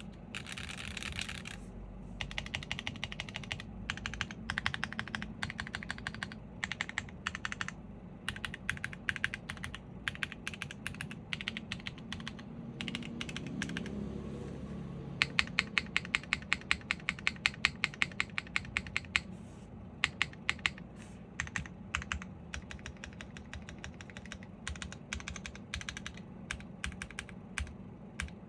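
Typing on a Shelby 80 TKL custom mechanical keyboard with factory-lubed Vertex V1 linear switches in an aluminium plate and GMK keycaps: a steady patter of keystroke clacks at uneven speed. There is a brief lull about halfway in, then a run of fast, evenly spaced, louder strokes.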